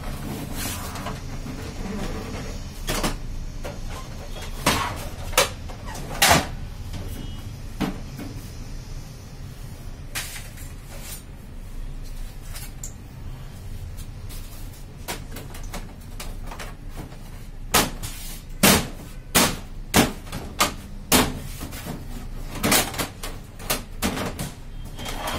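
Plastic covers and doors of a Xerox WorkCentre 7556 copier being opened and handled: scattered clicks and knocks, then a quick run of louder knocks in the last third, over a low steady hum.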